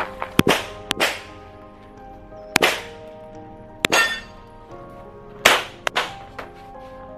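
Pistol shots fired during a practical-shooting stage, some in quick pairs and some single, with pauses of a second or more between them. Steel plate targets ring after several of the hits.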